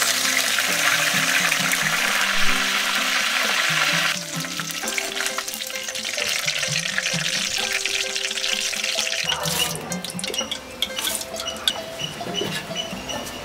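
Curry leaves sizzling loudly as they hit hot oil in a metal wok, the sizzle dropping sharply about four seconds in and carrying on more quietly as they fry. Background music plays underneath.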